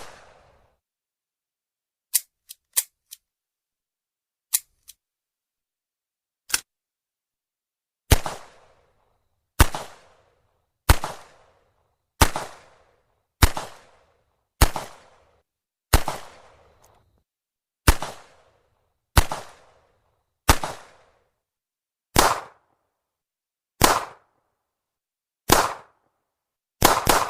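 .38 Special revolver shots: a few sharp clicks, then a string of about thirteen shots fired roughly one every one and a half seconds, each with a short ringing tail. Near the end the shots come in quicker succession.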